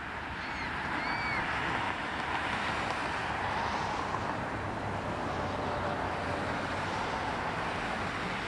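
Steady low hum and hiss of the tall ship Empire Sandy motoring past with her sails furled, with a couple of faint chirps about a second in.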